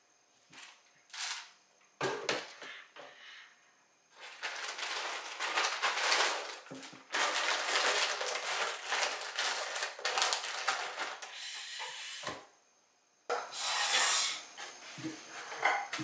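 IKEA KNAGGLIG pine boxes sliding and knocking on a wooden shelf while items are packed in, with long stretches of crinkling plastic packaging in the middle.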